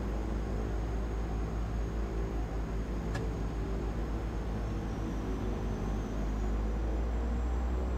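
DHC-6 Twin Otter seaplane's twin turboprop engines running at taxi power, a steady propeller drone with a faint high whine. The drone swells slightly about six seconds in.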